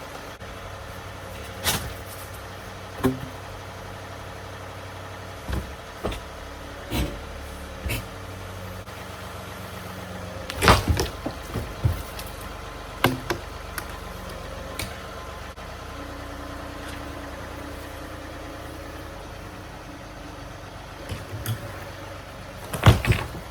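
Tractor engine running steadily while its front forks lift a shed, with scattered sharp knocks and clunks, loudest about eleven seconds in and again near the end.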